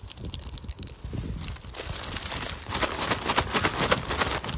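Paper bag of McDonald's Shaker Fries being shaken to coat the fries in seaweed seasoning: a fast, rhythmic paper rustle and rattle that grows louder about two seconds in.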